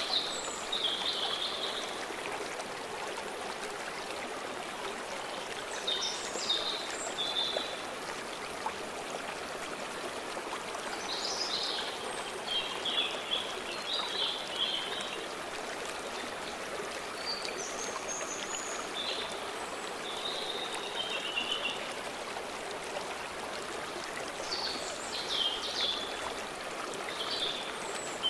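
A stream running steadily, with songbirds singing short high phrases every few seconds.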